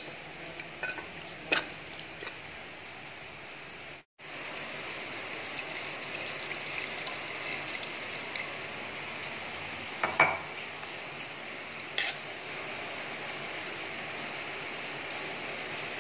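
Metal spoon clinking and scraping against a metal pot while stirring mutton pieces, over a steady hiss of the pot cooking on the stove. The sound cuts out briefly about four seconds in, and two louder clinks of the spoon come later on.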